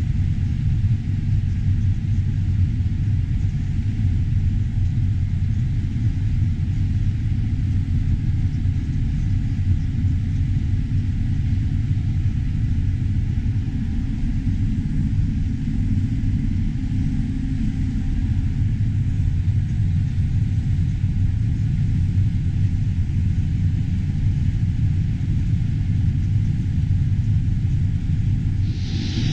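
Combine harvester running steadily while harvesting corn: an even, low rumble that holds the same pitch and level throughout.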